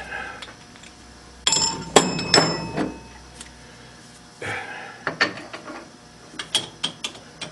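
Steel lathe tooling clinking and clanking as a drill chuck is handled and swapped for a live center in the tailstock. A run of ringing metal clanks comes between about one and a half and three seconds in, with a rougher clatter and a few lighter clicks later.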